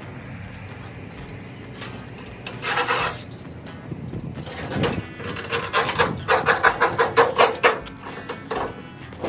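Rubbing and rasping from a tie-down strap being worked loose on a motorcycle's steel shipping crate. Near the end there is a run of quick rasping strokes, about four a second.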